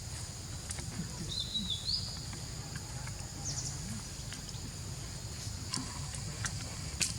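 Outdoor ambience: a steady high-pitched insect drone, with a short wavering high chirp about a second in and a few sharp clicks, the loudest near the end.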